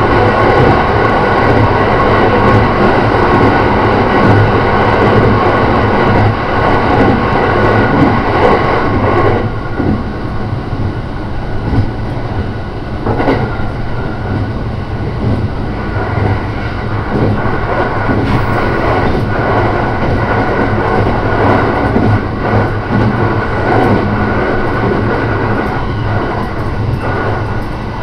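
A JR Shikoku 5000 series electric train running along the line, a steady rumble of wheels on rail that gets somewhat quieter about nine seconds in.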